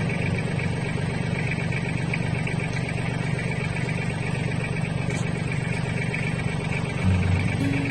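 Mahindra 1526 tractor's diesel engine running steadily.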